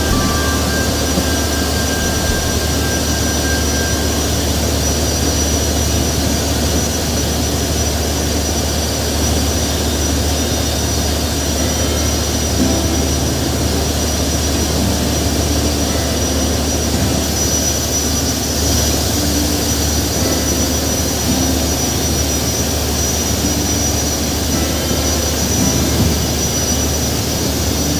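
Steady, unbroken drone of a boat's engine running at constant speed, mixed with a wide hiss of wind and water on the river.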